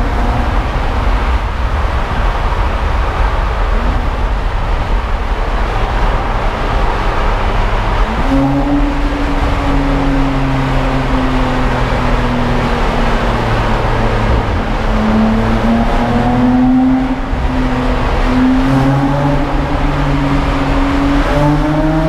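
BMW Z4 35is (E89) twin-turbo straight-six engine driving under load. Its note rises and falls with throttle and gear changes, with a sudden step up in pitch about eight seconds in and a climb toward the end. Steady road and wind noise comes in through the open top as the car runs through a road tunnel.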